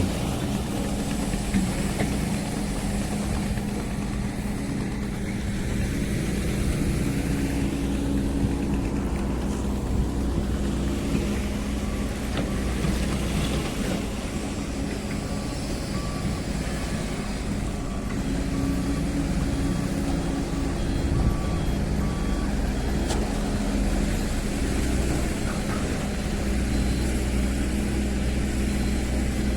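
Diesel engines of hydraulic excavators running under load, the drone swelling and easing as the machines work. A faint, evenly repeating beep sounds through the middle of the stretch.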